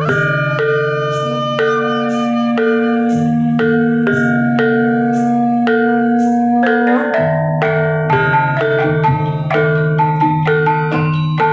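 Dance music led by tuned mallet percussion: struck notes in a quick, repeating pattern over held low tones.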